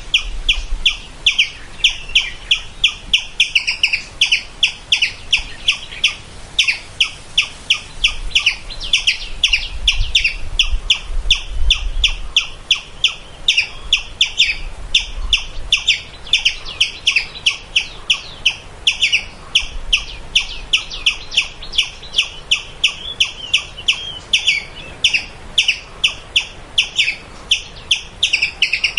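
A squirrel calling: a long unbroken series of short, sharp, high chirps, about three a second.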